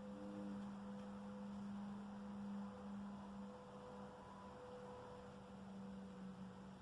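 A steady, low droning hum with a fainter, higher tone held above it. This is the unexplained night-sky hum of the kind reported as 'strange apocalyptic sounds'.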